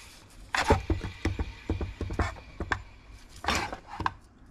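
BMW M5 alternator, removed from the car, turned by hand at its pulley: a run of irregular clicks and rattles. The mechanic hears a slight noise in it and believes the alternator is failing.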